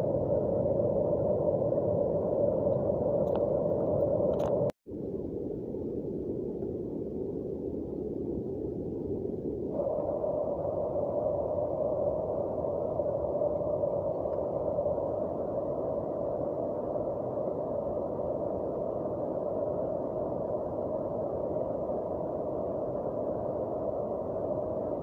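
Steady, muffled hiss of heavy rain falling on foliage. It cuts out for an instant about five seconds in, then carries on.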